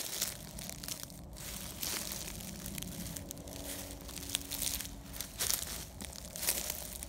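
Footsteps pushing through dry brush and leaf litter, with irregular crunching and crackling of twigs and leaves.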